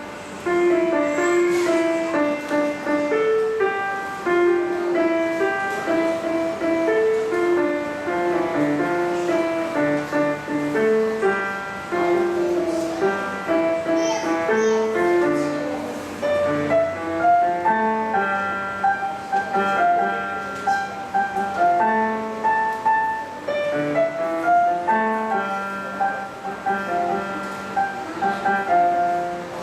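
Piano playing a melody over chords, note after note without a break.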